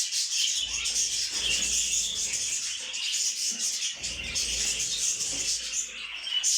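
Many small caged birds chirping at once, a dense, continuous chatter of high chirps.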